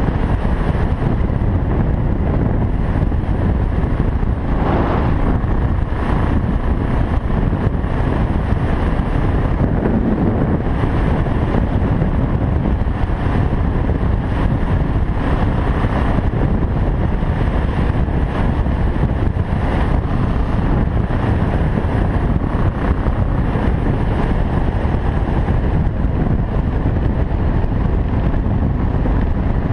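Steady, loud wind rush on the camera microphone of a moving motorcycle, over the single-cylinder engine of a BMW 650 GS running at road speed on a gravel road.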